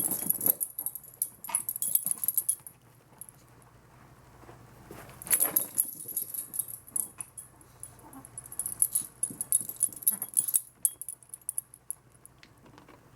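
Yorkshire terrier playing with a ball: three bursts of jingling, rattling and scuffling, with quiet gaps between them.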